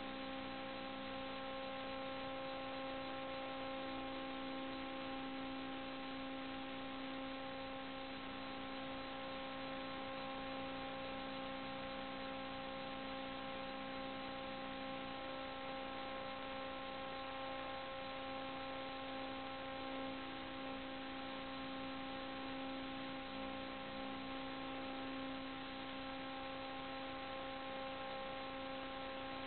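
Steady electrical hum with a few higher whining overtones over an even hiss, unchanging: electrical noise on the inspection camera's recording rather than any sound from the duct.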